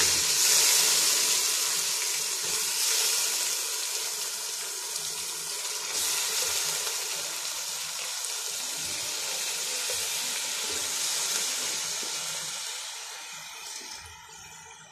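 Soaked broken rice sizzling as it goes into the pot of hot fried spice paste, a steady hiss that slowly dies down near the end.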